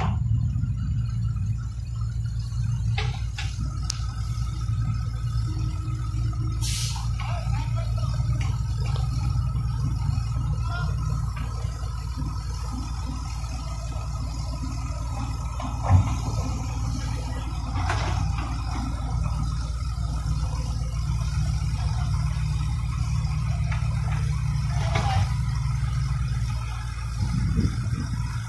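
Mobile crane's diesel engine running steadily under load while it hoists a road roller on slings, with a thin steady whine above the engine from a few seconds in. One sharp knock about halfway through.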